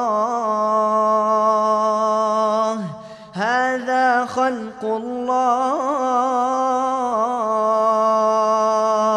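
Male Quran reciter chanting in melodic tajwid style in the Qalun reading, holding a long steady note that ends just before three seconds in. After a short breath he draws out the word 'Allah' for about six seconds with ornamented turns in the melody.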